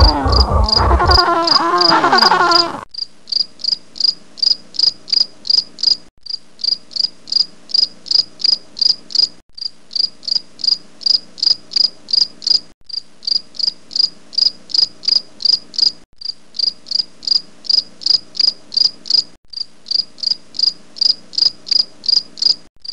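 Insect chirping from a looped sound effect: short, high chirps about three times a second, repeating in identical stretches of about three seconds with brief gaps between them. In the first few seconds a different, wavering pitched call plays and cuts off abruptly.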